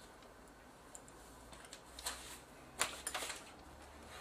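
A few light clicks and taps of small parts and tools being handled at an electronics workbench, the sharpest about three seconds in, over a faint low hum.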